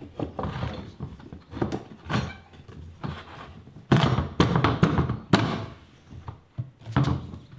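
Metal U-shaped handle tubing knocking and clunking against a lawn spreader's frame as it is worked into place, a string of knocks with the loudest bunched together from about four to five and a half seconds in.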